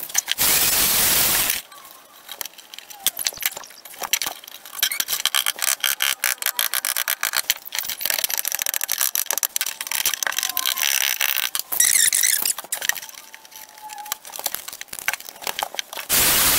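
Hand tools scraping and chipping at the bitumen coating on a 1981 Rover SD1's steel floor pan: a dense, irregular run of scrapes and clicks. A short loud rushing noise comes first, and another starts just before the end.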